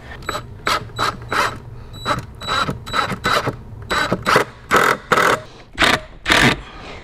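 Cordless power driver sinking 3-inch wood screws through a wooden bracing block into the studs, run in a quick series of short bursts with the motor humming between them.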